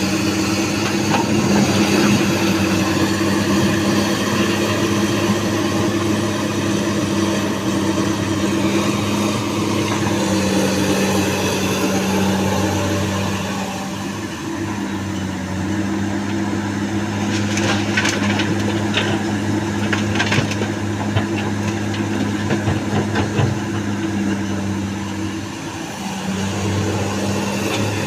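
Komatsu excavator's diesel engine running steadily under working load, easing off briefly twice, with several sharp clatters about two-thirds of the way through as the sandstone is handled.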